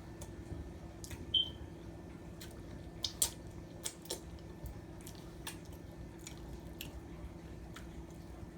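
Close-miked eating sounds: chewing with scattered wet mouth clicks and smacks, the loudest about three seconds in, over a faint steady hum.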